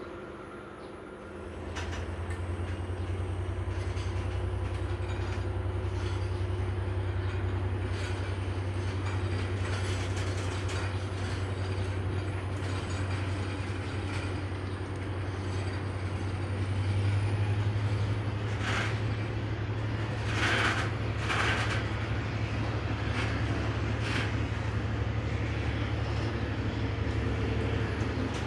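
Freight train hauled by diesel locomotive D-2351 running by with a steady low rumble. A few sharp clacks of wheels over the rails come about two-thirds of the way through.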